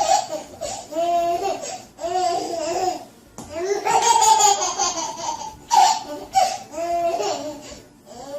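High-pitched laughter, like a young child's, in several bouts with short pauses between them.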